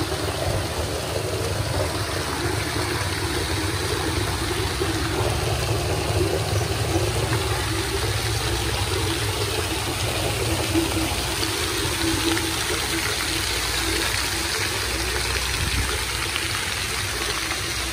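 Jets of a ground-level splash fountain rising from floor grates and splashing steadily onto wet paving, with a steady low rumble underneath.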